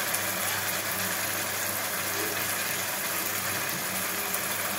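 Chopped tomatoes with fried onion, capsicum and garlic-chilli paste sizzling steadily in a frying pan as the masala cooks down, over a steady low hum.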